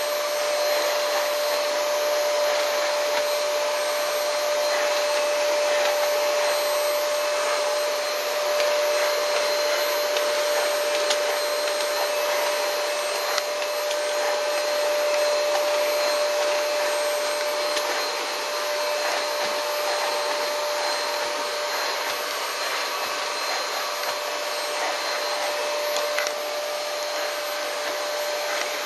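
Hair-removal vacuum cleaner running steadily over carpet, pulling up pet hair: a constant hiss of rushing air with a steady motor whine.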